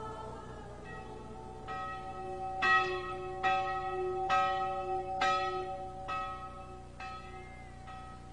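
Church bell ringing in slow, even strokes, about one a second, each stroke's ring carrying on under the next.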